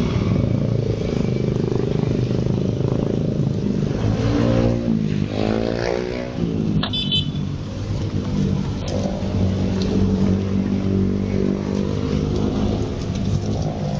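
Motorcycle engines running at idle, with one engine revving up and back down about five seconds in and a brief high beep near seven seconds, against the hiss of heavy rain.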